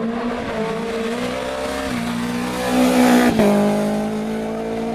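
Rally car engine under hard acceleration, its pitch climbing, dropping at a gear change about two seconds in, then climbing again. It is loudest around three seconds in as it passes, with a sudden change in the note just after.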